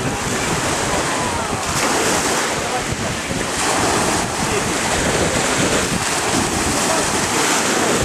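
Sea waves washing and churning with a steady rush of wind buffeting the microphone; faint voices in the background.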